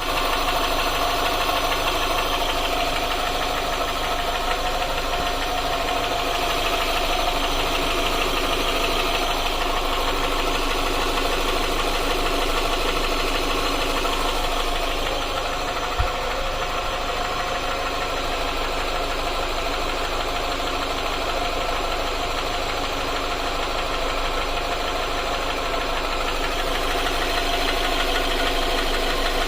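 Hyundai Tucson's G4GC 2.0-litre four-cylinder petrol engine running steadily with a knock whose cause the owner is asking about. A single sharp click sounds about halfway through.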